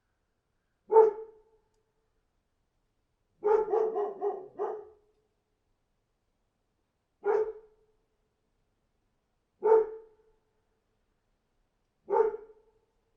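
A dog barking: a single bark, then a quick run of four or five barks, then single barks about two and a half seconds apart, with dead silence between them.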